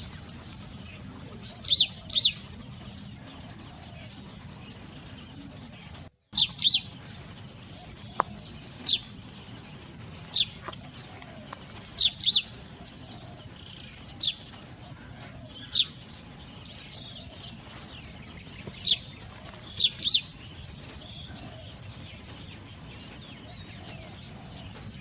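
Birds chirping: short, sharp, high calls, often in quick pairs, every second or two over a steady background hiss. The sound cuts out for a moment about six seconds in.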